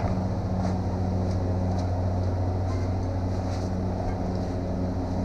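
Steady low machine hum at one constant pitch, with faint scattered clicks and rustles from a person moving about on the floor.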